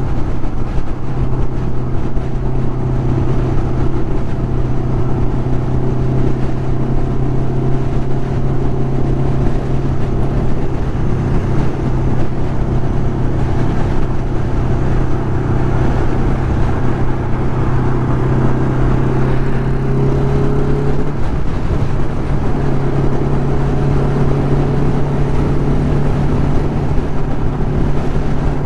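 Inline-four engine of a 1996 Kawasaki Ninja ZX-11 holding a steady note at highway cruising speed, under heavy wind rush. About twenty seconds in the engine note briefly drops away, then comes back.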